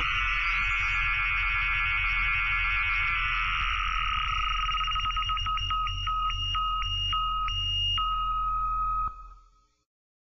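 Electronic background music: two steady high synth tones held over a pulsing bass, with repeating notes toward the end, stopping abruptly about nine seconds in.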